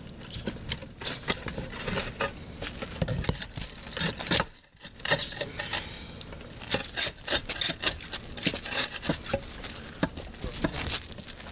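Concrete roof tiles and battens being pried and worked loose with a flat steel pry bar and by hand: a busy run of short scrapes, clicks and knocks of tile, metal and grit, with a brief pause about halfway.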